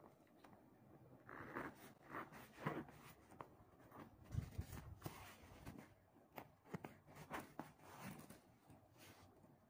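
Faint rustling and scraping of a handmade felt quiet book's pages as they are handled, with a few light clicks in the second half.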